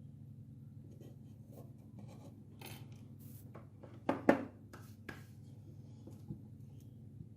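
Light scraping and clicking of small objects being handled on a work surface, with two sharp taps about four seconds in, over a steady low hum.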